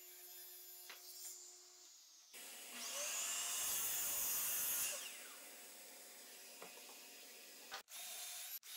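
Compound miter saw spinning up with a rising whine and cutting through a thick ash board, loudest a few seconds in, then winding down. Near the end, a cordless drill runs, boring into the wood.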